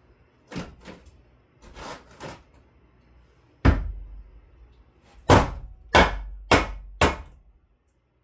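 Blows against a wooden closet frame, struck to knock it loose: four lighter knocks, then five hard blows, the last four about half a second apart.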